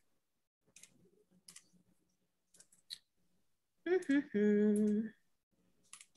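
A person hums briefly, wordless and held on one steady pitch, about four seconds in. Scattered light clicks come before and after it.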